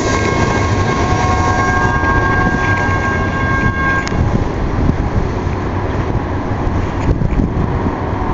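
Tail end of a double-stack intermodal freight train rolling past and away: a steady rumble of steel wheels on rail, with several steady high-pitched tones over it that stop together about four seconds in.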